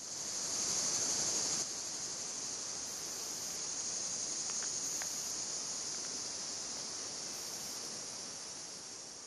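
Steady, high-pitched chorus of summer insects in farm fields, dropping slightly about a second and a half in and slowly fading toward the end.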